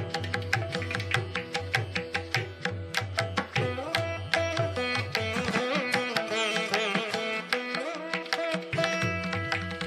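Instrumental background music: a quick, steady beat of struck notes under a melody that slides up and down in pitch through the middle.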